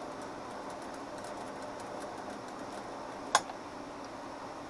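Steady background hiss with faint light ticks, and one sharp click a little over three seconds in.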